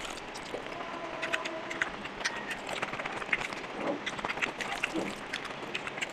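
A hand squeezing and mixing rice with curry on a steel plate: sticky, wet squishing made up of many small irregular clicks.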